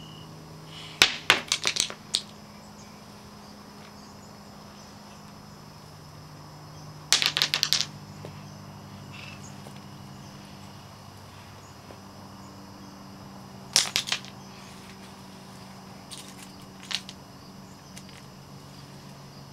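Rounded landscaping pebbles clacking against one another as they are picked up and dropped by hand, in three short bursts of rapid clicks several seconds apart, with a few fainter clicks near the end. A steady low hum runs underneath.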